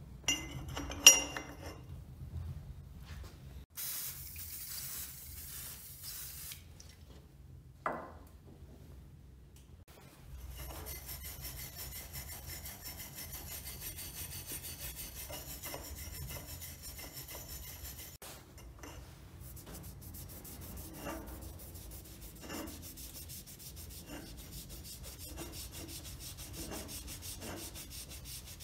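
Paper towel rubbing and wiping along the metal barrel of an old grease gun clamped in a bench vise, a steady scrubbing with small ticks. A sharp clink about a second in is the loudest sound, and there is a brief hiss a few seconds in.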